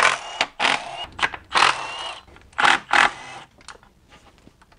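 Milwaukee cordless ratchet spinning out intake manifold bolts in about five short bursts, one with a rising motor whine, over the first three and a half seconds.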